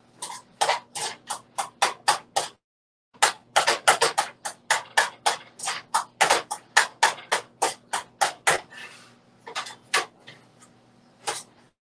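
A metal kitchen utensil mashing boiled potatoes in a metal pot, clacking against the pot about three times a second. The strikes stop briefly about two and a half seconds in.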